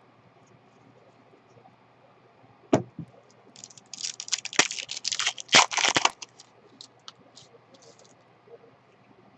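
A sharp tap about three seconds in, then a couple of seconds of crinkling and tearing as a trading-card pack wrapper is ripped open, followed by a few light clicks of cards being handled.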